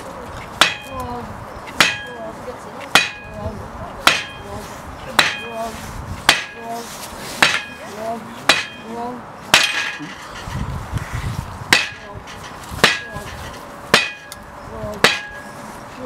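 Sledgehammer blows on a steel bridge deck, steady at about one a second, each with a short metallic ring: the deck is being knocked sideways to line it up on its bearings.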